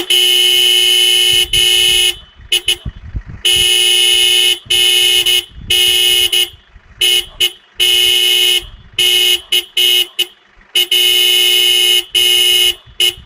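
Toyota Hilux pickup's horn sounded over and over in irregular blasts, some held about two seconds and others short toots, by a Jack Russell terrier at the steering wheel.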